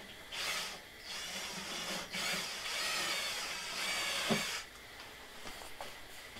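Tool noise from work on a snow blower: a short burst, then a few seconds of steady high-pitched whirring rasp that ends with a knock.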